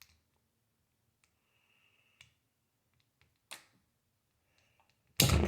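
Faint clicks and light taps of plastic model-kit parts being handled and pressed together, with a few soft hisses. A loud sudden sound near the end.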